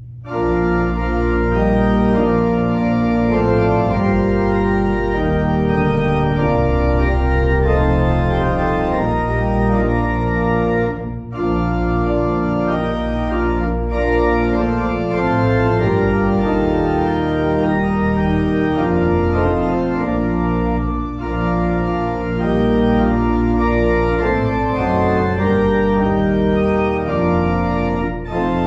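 Organ music: sustained full chords over a deep bass line, with brief breaks between phrases.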